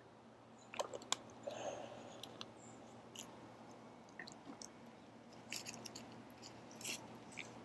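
Faint scattered clicks and soft rustling close to the microphone, in two clusters, about a second in and again toward the end, over a steady low hum.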